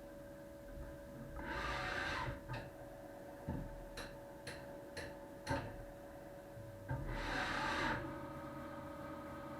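CNC lathe running with a steady machine hum. Two hissing bursts of about a second each come about one and a half seconds in and again about seven seconds in, with a series of about six sharp clicks, roughly every half second, between them.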